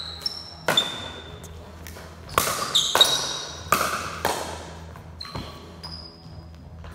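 A plastic pickleball being struck back and forth by paddles in a fast rally: about a dozen sharp, hollow pops, each with a short ringing tone and an echo. The hits come thickest in the middle and thin out near the end as the point finishes.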